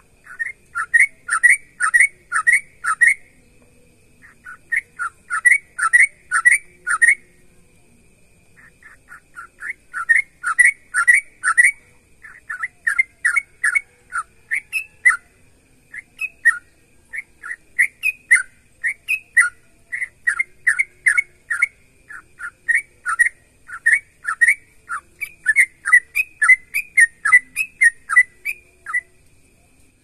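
Yellow-vented bulbul (trucukan) in full song: quick runs of short, bubbly chirping notes, phrased in groups of about five to eight with brief pauses, repeated over and over.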